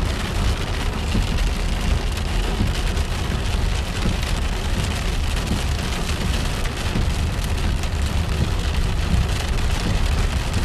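Rain hitting a car's roof and windscreen, heard from inside the moving car, over a steady low rumble from the car on the wet road.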